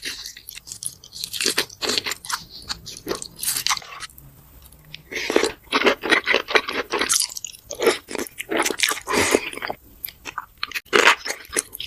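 Close-miked crunchy biting and chewing of food, many quick crackling bites in a row, with a short quieter pause about four seconds in.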